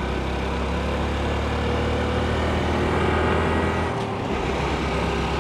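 Honda CT125's small single-cylinder engine running as the motorcycle rides along, steady, with a brief dip about four seconds in.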